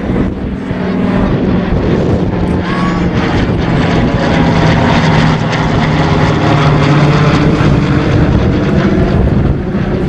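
Piston warbird's radial propeller engines droning steadily at close range, a low hum that holds throughout.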